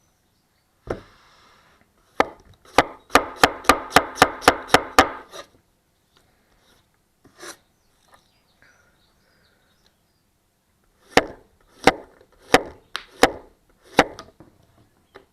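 Chef knife chopping on a cutting board: a quick run of about ten chops at roughly four a second, then a few slower single chops near the end.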